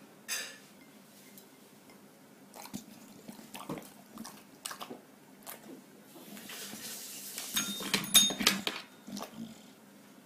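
English bulldog eating and chewing, with scattered clicks and taps. About eight seconds in, a louder cluster of sharp clinks with a brief metallic ring: the call bell on the table being pressed to ask for more food.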